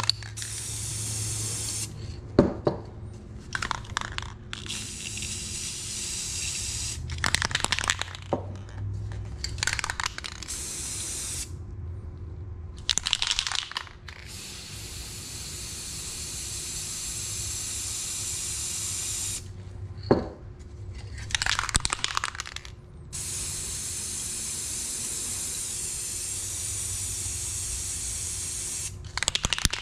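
Aerosol spray paint cans spraying in long steady hisses of several seconds each, several times over. Between the sprays come short bursts of sharp clattering.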